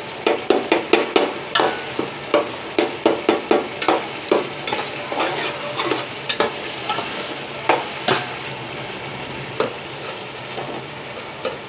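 Onion-and-tomato masala sizzling in oil in a large metal degchi while a metal spatula stirs it, scraping and clicking against the pot; the tomatoes have fried down and released their water. The spatula strokes come thick and fast in the first few seconds, then thin out to an occasional knock over the steady sizzle.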